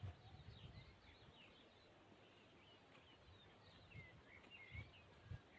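Faint birdsong outdoors: many short, quick chirps and twitters from small birds, over a low background rumble with a few soft low thumps.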